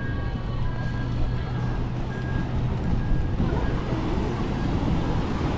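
Steady low rumble of road traffic, with faint music over it for the first few seconds.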